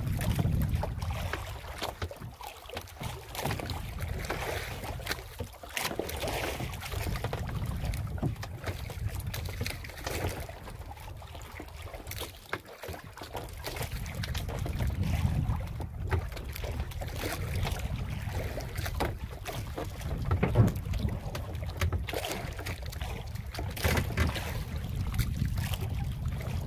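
Wind buffeting the microphone over water lapping against a small wooden outrigger boat, with an uneven low rumble and a few light knocks, the sharpest about twenty seconds in.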